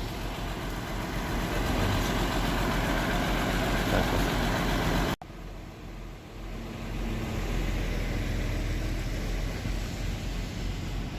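MAZ-5432 truck's diesel engine running, a steady drone with a constant low hum. About five seconds in it cuts off abruptly, then comes back quieter and builds back to a steady drone.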